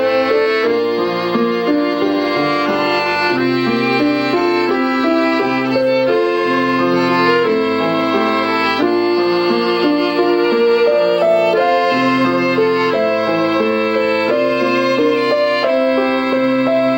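Instrumental trio of violin, Hammond 44 keyboard harmonica and digital piano playing a melody together over piano chords, the violin standing out.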